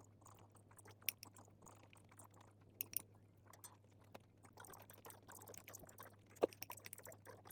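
Faint chewing with scattered small clicks and crackles, over a low steady hum.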